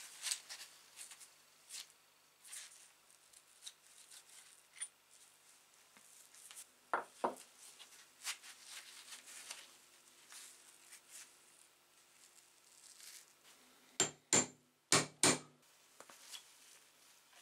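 Metal parts of an old two-speed hand drill being handled and taken apart: faint clicks and rubbing of gears and shafts in the frame, then four sharp metal knocks in quick succession near the end.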